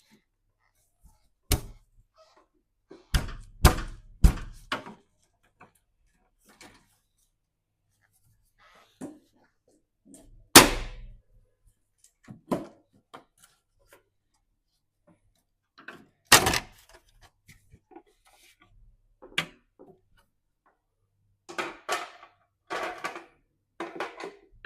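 Scattered knocks and clunks of parts and tools being handled on a washing machine during drain pump removal. There are about a dozen separate sharp strikes, a quick run of them a few seconds in, the loudest about ten seconds in, and a busier patch of rattling near the end.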